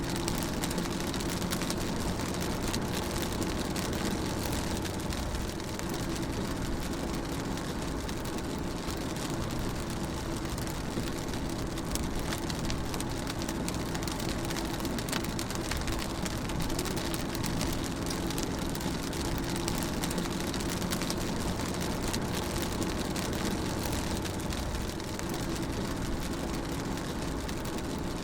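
Rain drumming steadily on a moving car, heard from inside the cabin, over the steady low hum of the engine and road.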